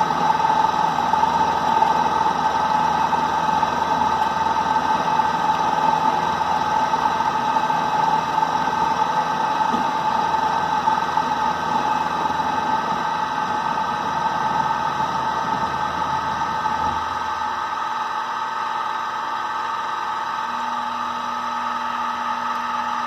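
Klutch benchtop milling machine running steadily, a motor hum with a high whine over it; the deep part of the hum drops away about 17 seconds in.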